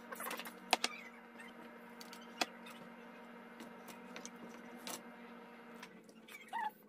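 Silicone spoon stirring and scooping a thick pepper stew in a metal pot: soft wet squishing with a few sharp clicks, over a steady low hum.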